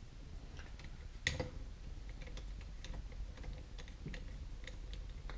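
Faint, irregular small clicks and ticks of a T15 Torx screwdriver turning screws loose inside a trolling motor's open motor housing, with one sharper click about a second in.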